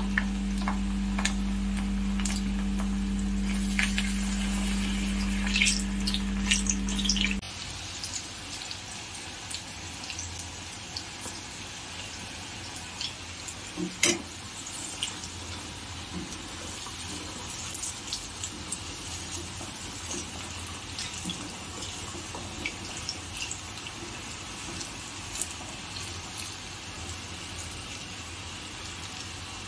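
Rice-flour-battered potato and pointed gourd fingers deep-frying in a kadai of hot oil: a steady sizzle with small crackles and a few sharp clinks of a perforated spoon against the pan. A steady low hum runs under it and cuts off suddenly about seven seconds in.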